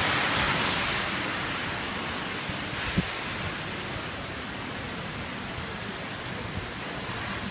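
Heavy typhoon rain pouring down with wind, a steady dense hiss that eases slightly after the first second. A brief low thump about three seconds in.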